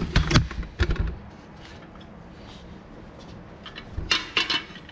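Metal guard clamps and hardware clinking and knocking as they are handled and fitted around a suspension arm. There is a cluster of knocks at the start, a lull, then a quick clatter of metal clicks about four seconds in.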